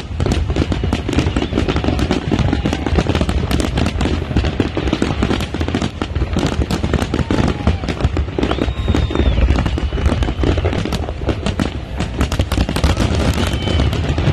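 Fireworks display at full barrage: a rapid, unbroken string of bangs and crackles from many shells bursting at once.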